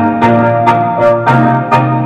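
Keyboard-led music with a steady beat, played loud through a home-built parametric equalizer and power amplifier into two 15-inch speakers, as a sound test of the equalizer.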